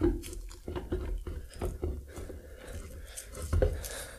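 Irregular metal knocks, clunks and scrapes as the rear differential housing of a Mazda MX-5 is rocked by hand and its halves pulled apart after the bolts are removed.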